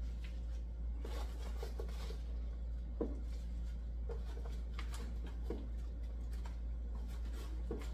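Chopped vegetables being handled and dropped into a large pot of soup: scattered soft knocks and rustles, the sharpest about three seconds in, over a steady low hum.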